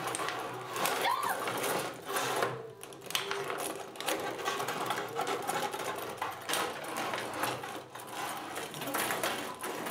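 Rod hockey game in play: metal control rods sliding and twisting in the table, plastic players clacking against the puck and boards in a rapid, uneven clatter.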